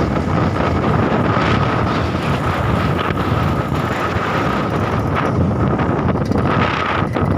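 Heavy wind buffeting the microphone over a vehicle engine running steadily, with a thin steady whine.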